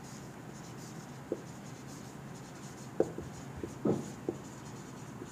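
Whiteboard marker writing on a whiteboard: a few short, quiet strokes and squeaks of the tip on the board, mostly in the second half.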